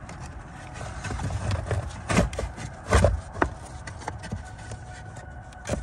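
A Tesla Model 3 cabin air filter's frame rubbing and scraping against the plastic filter housing as it is pushed into its slot, with a few sharp knocks, the loudest about two and three seconds in.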